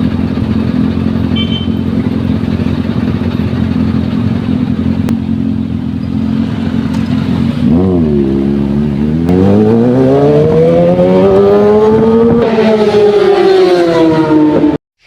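Big-bike motorcycle engine running at a steady note, then about eight seconds in the revs dip briefly and climb hard for about four seconds as it accelerates, easing off slightly before the sound cuts off suddenly.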